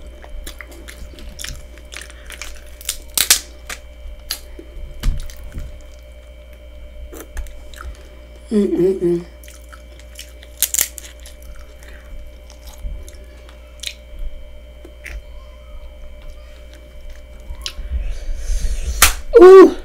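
Crab legs being cracked and their shells picked apart by hand, with sharp cracks and small snaps, alongside mouth chewing sounds. A short hummed voice sound comes twice, about halfway through and loudest near the end.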